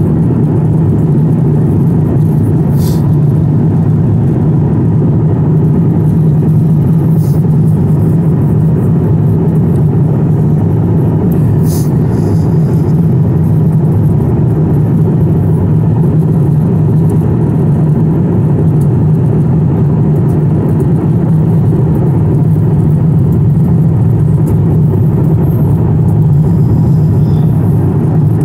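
Steady, loud cabin noise of a jet airliner in flight, heard from a window seat: a constant low roar of engines and airflow that does not change. A few faint light ticks sound in the cabin.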